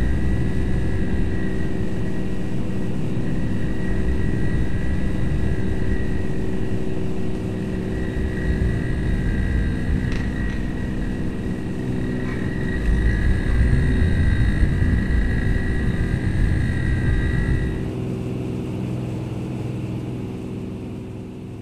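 Small solar-powered electric motor and propeller of a desktop toy airplane, heard through a camera riding on the plane as it circles its stand: a steady whine over a rushing rumble. About eighteen seconds in the high whine stops, and the sound dies down toward the end.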